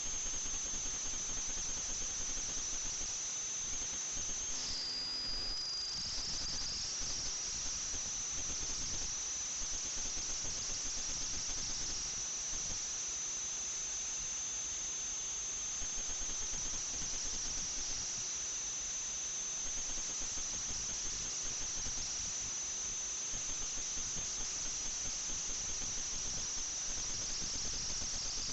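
FPV quadcopter's motors and propellers whining at a high, steady pitch over a rushing hiss. The whine drops briefly about five seconds in and climbs back as the throttle changes.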